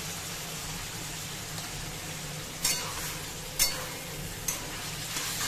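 Minced beef with tomatoes and green chillies sizzling steadily in a kadhai. In the second half a metal spatula stirs the mix, scraping and knocking against the pan a few times.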